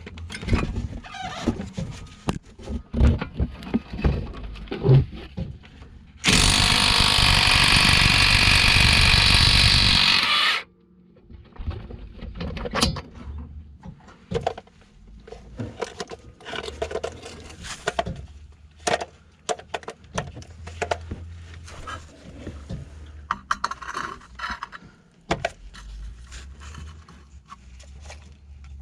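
Cordless 1/2-inch drive right-angle impact wrench hammering in one steady burst of about four seconds, partway through. Before and after it come scattered clicks and scraping.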